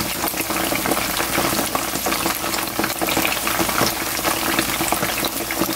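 Batter-coated chicken gizzards deep-frying in hot oil: a noisy, steady crackle and sizzle of many small pops. This is the first, short fry before a second fry to crisp them.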